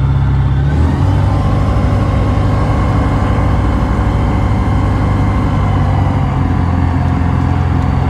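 Microlight aircraft's piston engine and propeller running steadily, heard from inside the closed cockpit as the aircraft taxis on grass; the engine note shifts about a second in, then holds.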